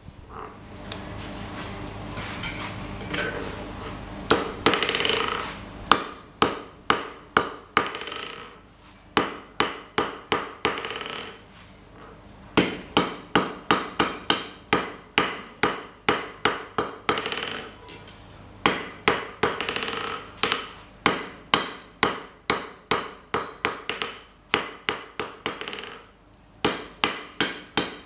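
Hand hammer striking red-hot steel bar on a steel anvil, forging: runs of about two to three blows a second, each ringing briefly, with short pauses between runs. A steady rushing noise comes before the first blows.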